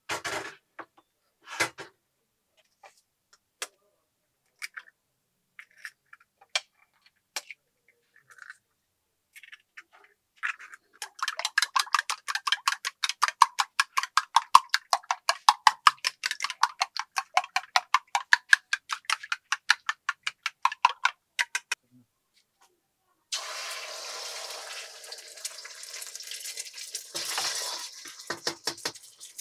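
A few scattered clicks of kitchen utensils, then eggs beaten hard in a ceramic bowl for about ten seconds, quick even strokes about four or five a second. A couple of seconds later beaten egg hits hot oil in a steel wok and sizzles steadily.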